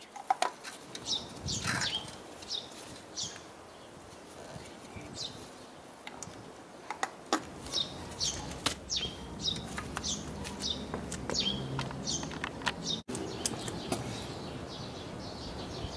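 Small birds chirping over and over, each call a short note sweeping down, with sharp clicks and knocks of a gloved hand handling a spark-plug cap and engine parts, the loudest a click right at the start.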